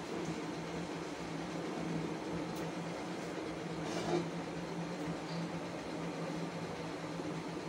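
A steady low hum, with a short light metal scrape about four seconds in as the aluminium lid of the preheating pot is lifted off with a cloth.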